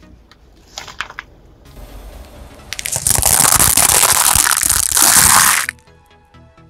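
A car tyre rolling over and crushing an object: a loud, dense crunching and crackling that starts about three seconds in, lasts about three seconds, then stops abruptly.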